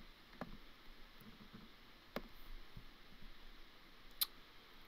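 Three faint, sharp clicks about two seconds apart in a quiet room, a computer mouse being clicked while moving posters on the screen.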